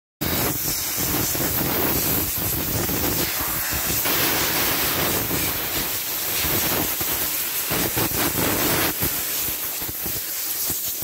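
Compressed-air shoe-cleaning gun blasting air at a sneaker: a loud, steady hiss of rushing air with a low rumble beneath it, starting abruptly and easing slightly near the end.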